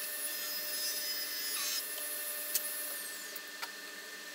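Table saw ripping a curly maple board lengthwise, the blade running with a steady whine. The cutting sound ends a little before the halfway point and the saw keeps spinning, with two light clicks.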